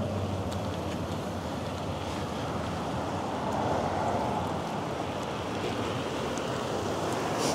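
Steady rush of wind over the microphone of a camera on a moving bicycle, with city traffic in the background; the low hum of a vehicle engine fades away in the first second.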